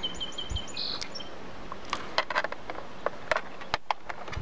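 A small bird chirps a quick run of short high notes at the start. Then comes a series of sharp plastic clicks and taps as the laptop's plastic back panel is set in place and pressed down.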